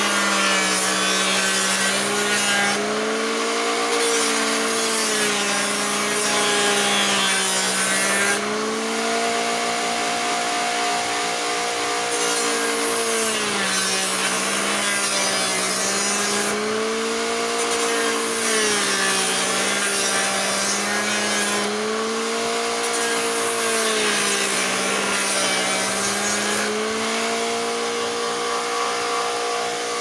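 Homemade sander built from a blender motor, running with wood pressed against its sandpaper: a steady motor whine over the hiss of sanding. The whine drops in pitch and rises again every few seconds as the load on the motor changes.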